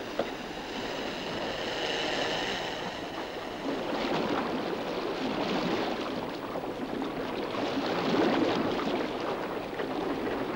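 Choppy sea water rushing and splashing around wooden open whaleboats being rowed, with wind. A thin, high whistling tone sounds over the water noise for the first few seconds.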